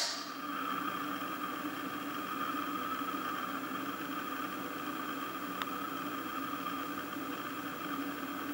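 PMM 7010 EMI receiver's loudspeaker carrying the Raspberry Pi's narrowband FM beacon channel between voice announcements: a steady hum and hiss with faint whining tones. One light click comes about five and a half seconds in.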